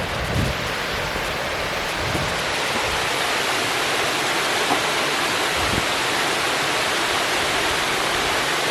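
Small forest stream flowing through and over tree roots: a steady, even splashing hiss close to the microphone.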